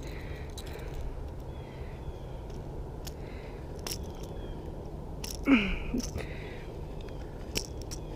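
Faint handling noise over a steady low rumble: a few light clicks, and a short falling grunt about five and a half seconds in.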